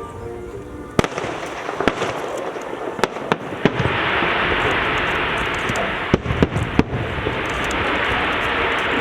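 Fireworks display: shells bursting with sharp bangs, several in the first few seconds. From about four seconds in comes a dense, continuous crackling, with a few more bangs breaking through it around six to seven seconds.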